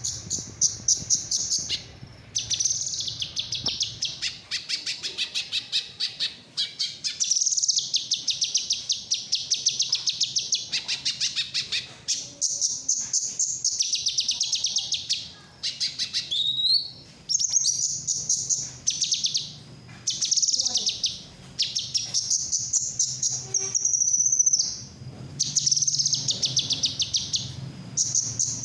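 A songbird singing long phrases of very rapid, high chattering trills, each lasting a few seconds with short breaks between them.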